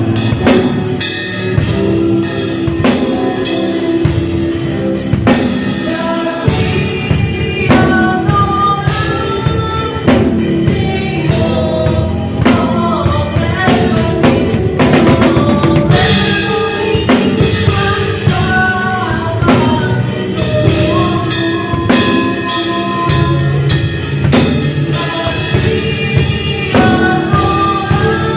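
Drum kit played along with a song that has a singing voice, drums and sung melody running together.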